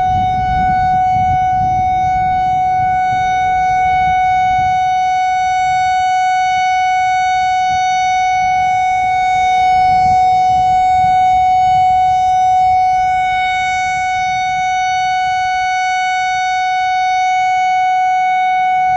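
Whelen WPS 4004 electronic outdoor warning siren sounding its steady Alert tone: one high pitch held without rising or falling, swelling slightly in loudness about halfway through. A fainter, lower steady tone from a second, more distant siren sounds beneath it.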